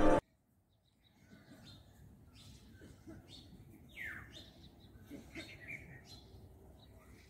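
Small birds chirping in short, scattered high calls, one a falling call about four seconds in, over faint steady background noise. A music track cuts off right at the start.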